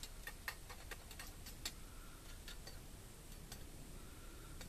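A metal utensil clicking and scraping against a mess-kit pot while stirring cooked buckwheat: a quick run of light clicks over the first two seconds or so, then a few scattered ones.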